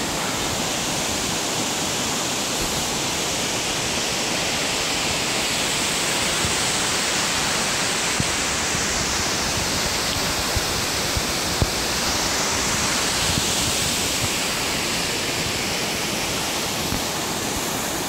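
Waterfall and its rocky stream rushing steadily, a constant hiss of falling water, with a few faint ticks around the middle.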